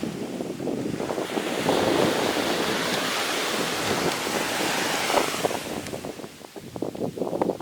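Sea surf washing onto the beach, swelling about a second in and easing off near the end, with wind buffeting the microphone.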